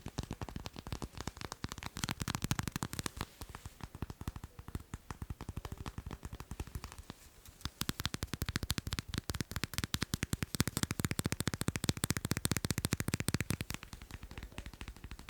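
Fast tapping on macarons, a rapid run of many small taps a second, with a brief pause about seven seconds in.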